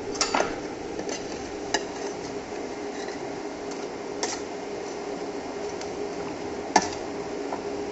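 A stainless steel ladle clinks against a metal bowl and pot rim as pineapple and tomato pieces are scooped into a pot of boiling broth. About five sharp clinks, the loudest near the end, over a steady low hum.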